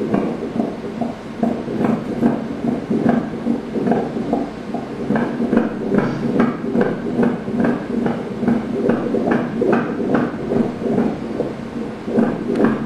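Fetal heartbeat on an ultrasound machine's Doppler: a rhythmic pulsing whoosh of about two to two and a half beats a second, the normal quick rate of an unborn baby's heart.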